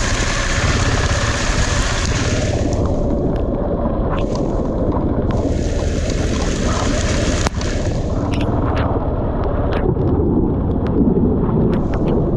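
Motorcycle riding a wet dirt track: a steady low engine and wind rumble on the microphone, with a loud hiss for the first couple of seconds and again near the middle, and scattered ticks in the second half.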